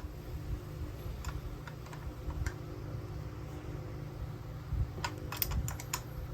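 Scattered light clicks, a few in the first seconds and a quick cluster about five seconds in, over a steady low hum.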